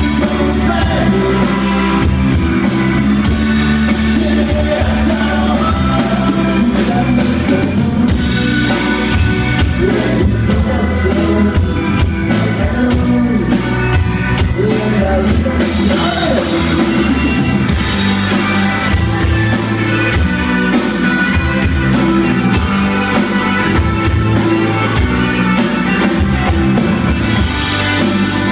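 Live rock band playing: acoustic and electric guitars, bass guitar and drum kit, with a male lead vocal.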